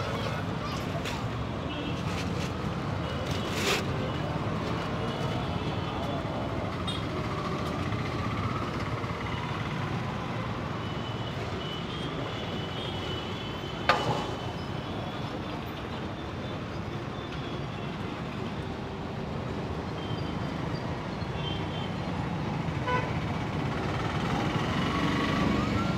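Busy street ambience: steady traffic with a few horn toots and the chatter of a crowd, broken by one sharp knock about fourteen seconds in.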